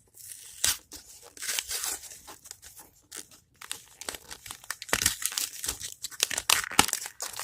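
A Pokémon card booster pack's foil wrapper being torn open, with crinkling and crackling of the foil in irregular bursts.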